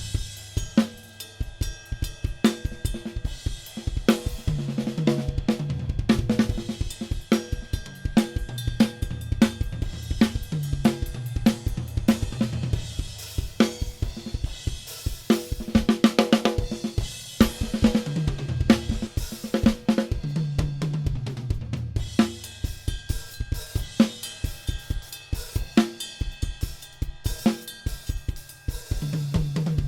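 Drum kit being played: bass drum, snare, hi-hat and cymbals in a continuous groove with fills.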